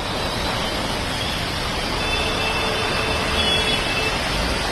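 Steady hiss of heavy rain mixed with traffic noise on a wet road. A faint high-pitched tone holds for about two seconds in the middle.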